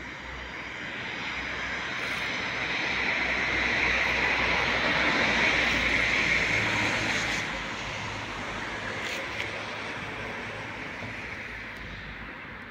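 An aircraft flying over: a broad rushing engine noise that swells for about four seconds, holds, then fades away.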